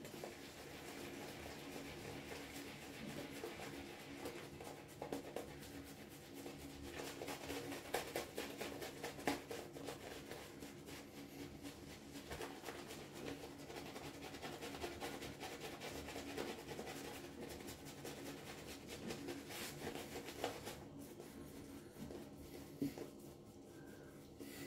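Synthetic-knot shaving brush working creamy shaving lather over the face: faint wet brushing with quick repeated strokes.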